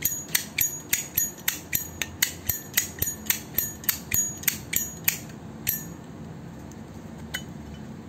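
Zippo Armor brass lighter lid being snapped open and shut over and over, a fast run of sharp metallic clicks, about three or four a second, each with a short ring. The run stops after about six seconds, and one more click follows near the end.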